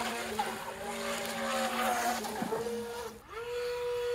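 Feilun FT012 RC speedboat's brushless motor whining at speed, with water hissing and spraying off the hull. The whine dips about two and a half seconds in, then comes back as a steady whine that cuts off near the end.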